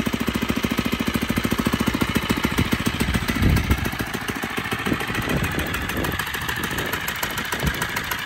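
Small 79cc four-stroke single-cylinder engine of a motorized bicycle idling just after starting, with a fast, even, smooth putter. There is a brief louder low surge about three and a half seconds in.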